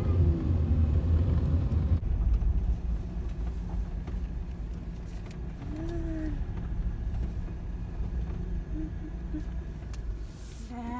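Low, steady rumble of a car's engine and tyres heard from inside the cabin as it rolls slowly along a dirt driveway, getting quieter about two seconds in.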